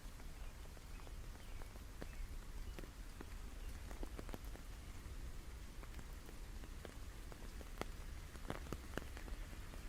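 Rain falling, with a faint steady hiss and many irregular, scattered drop ticks over a low rumble.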